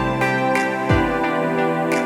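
Background music: soft, calm instrumental music with sustained notes and a gentle beat.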